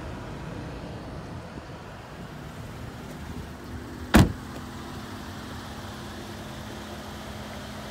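A car door on a GMC Acadia shuts with a single hard slam about four seconds in. Steady background noise runs throughout, and a low steady hum is more noticeable after the slam.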